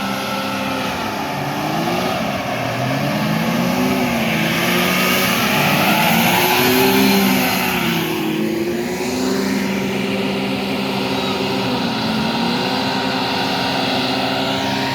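Several hovercraft running past with their engines and air propellers going, the pitch of each wavering up and down as they move; loudest about six to seven seconds in as they pass close, then easing.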